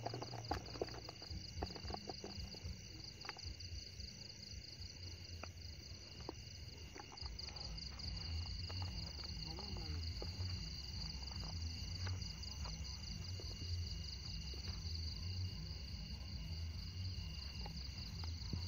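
Crickets and other night insects chirping in a steady, fast-pulsing high chorus, over a low rumble of handling and movement noise with a few clicks near the start.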